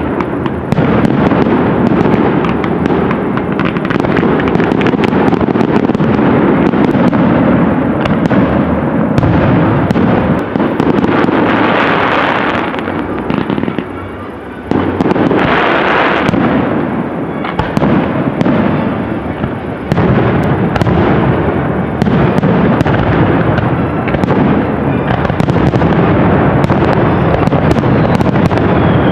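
Fireworks display: a continuous barrage of bangs and crackling that eases off briefly about halfway through, then resumes suddenly.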